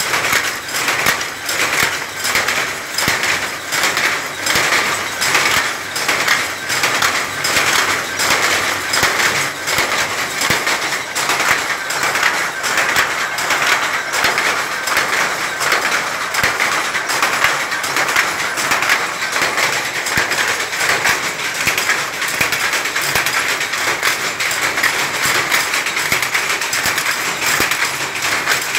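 Power looms running at full speed: a loud, fast, steady mechanical clatter of the weaving strokes, repeating evenly without pause.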